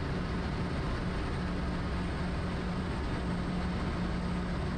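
Quest Kodiak's single turboprop engine and propeller running at a steady approach power, heard as an even drone with a low hum from inside the cockpit.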